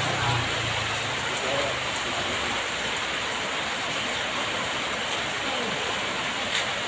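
Heavy rain falling steadily, a constant hiss of rain on the surfaces around.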